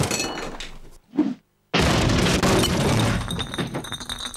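Cartoon sound effects of a body crashing down through a ceiling onto the floor. A noisy rumble fades out, there is a short thump about a second in and a moment of silence, then a loud crash just before two seconds in. The crash dies away into clattering and tinkling debris.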